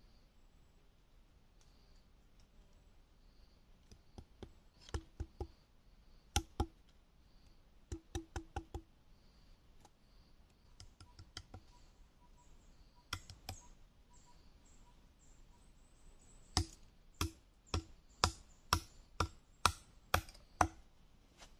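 Knife blade chopping bamboo against a wooden log: sharp knocks in short groups of two to four, ending in a run of about eight knocks, roughly two a second.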